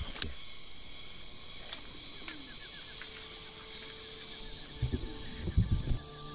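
Tropical rainforest insect chorus: a steady high buzzing with a quick repeated chirping running through it. A few low knocks of handling or steps come about five seconds in.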